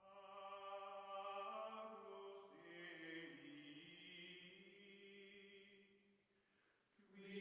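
Faint choir-like outro music of long held, slowly shifting notes. It fades out about six seconds in and starts again near the end.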